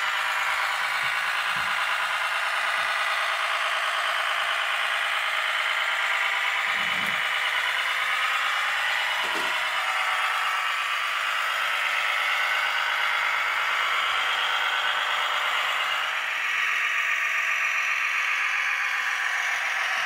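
Radio-controlled Mercedes-Benz 8x4 concrete mixer truck model driving: a steady mechanical running sound with some rattle, and a few soft low thumps.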